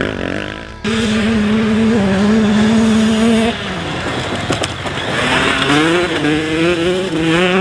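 Grasstrack motorcycle engine held at steady high revs, cut off about three and a half seconds in, then revving up again with a rising, wavering pitch as power goes back on.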